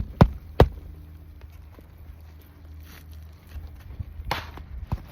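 Sharp knocks and taps on a shingle roof during a shingle repair: three quick ones within the first second, then a few more near the end.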